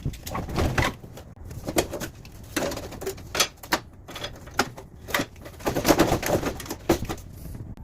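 Amana PTAC blower wheel squeaking as it winds down, a run of irregular short chirping squeaks. The technician puts this down to the blower wheel bearing; the cause turns out to be the wheel's shaft not seated in its plastic bearing holder.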